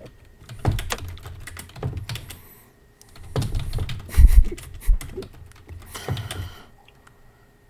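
Typing on a computer keyboard: rapid keystroke clicks in quick bursts, with a couple of heavier thuds around the middle.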